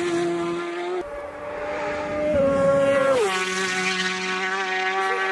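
Racing motorcycle approaching flat out and passing close by, its engine note dropping sharply in pitch about three seconds in, then holding a lower steady note as it speeds away. Before that, the fading lower note of a bike that has just gone by, cut off about a second in.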